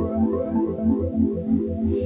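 Background intro music: synthesizer and keyboard over a steady, quick bass pulse.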